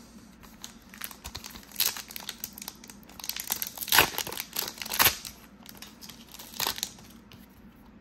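A trading card pack wrapper being torn open and crinkled: a run of crackly rustling and ripping, with the sharpest crinkles about four and five seconds in.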